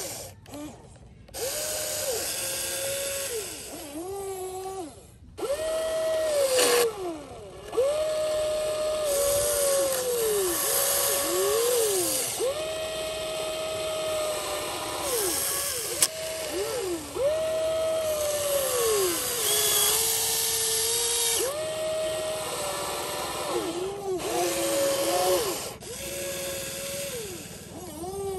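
Huina RC excavator's small electric motors whining in many runs of one to three seconds, starting and stopping abruptly, each run's pitch dipping and rising as the boom, arm and bucket move while it digs sand.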